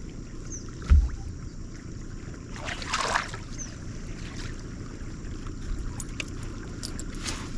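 Fishing cast from a bass boat's front deck: a low thump about a second in, then a short whoosh around three seconds in, over a quiet wind-and-water hiss. A few faint high chirps and small clicks come through near the end.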